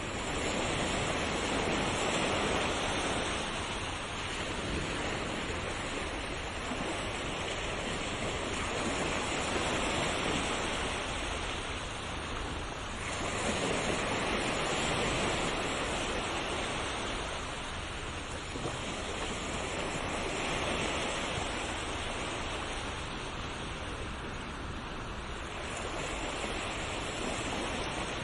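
Sea waves breaking and washing on a shore, a steady rush of surf that swells and falls back every few seconds.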